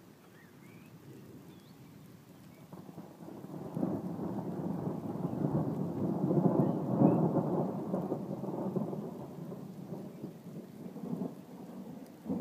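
Rolling thunder: a low rumble builds about three seconds in, peaks around the middle and fades, then swells again near the end.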